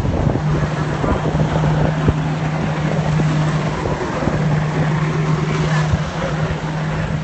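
Jet ski engine running at a steady pitch, with a brief break about four seconds in.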